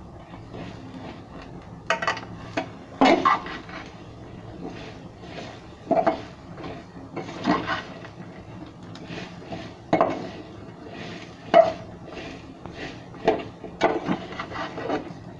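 Metal ladle scraping and clanking against an aluminium cooking pot while stirring tomatoes, shallots and spices frying in oil. The clinks come irregularly, every second or two.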